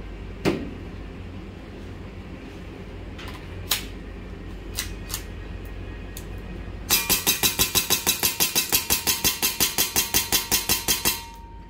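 Silver custom KJW Shadow 2 gas blowback airsoft pistol, with aluminium slide and frame, emptying its magazine in rapid fire: about twenty-two shots at about five a second over roughly four seconds. A few separate clicks of handling come first.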